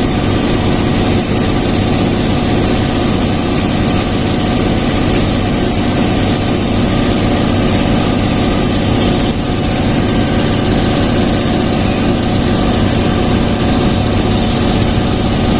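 An engine idling steadily, an even mechanical running sound with no change in speed.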